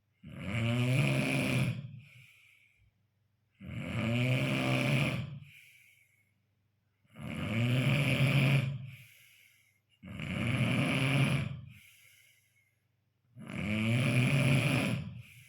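A man snoring in his sleep: five long snores, about one every three and a half seconds, each followed by a short, breathy exhale.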